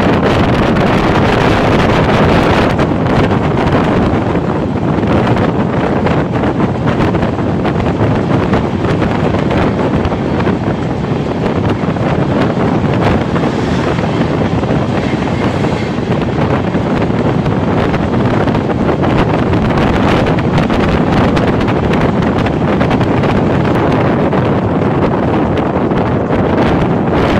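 Wind buffeting the microphone out of a moving train's window, over the steady noise of the train running on the rails.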